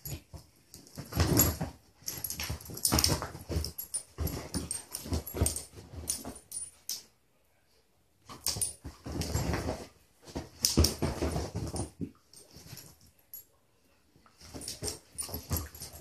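Two beagles play-fighting on a couch: bursts of dog growling, snuffling and scuffling against the cushions, in three bouts separated by brief lulls.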